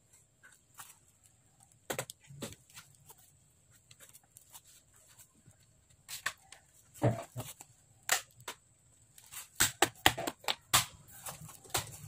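Scattered clicks and knocks of a plastic laptop chassis being handled on a desk: lifted, tilted and pressed along its edges, with the taps coming thicker from about halfway through.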